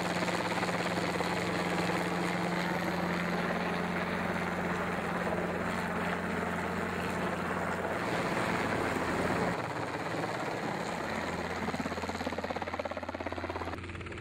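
Robinson R22 Beta II piston helicopter flying low overhead: a steady engine drone with rapid rotor-blade chop. The sound changes about nine and a half seconds in and grows fainter near the end.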